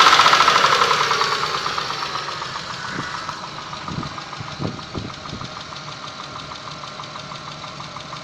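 Mitsubishi 6A13 2.5-litre V6 engine dropping back from a rev to idle in the first two seconds, then idling with a fast, even ticking knock. This is the knock that shows once the engine is warm.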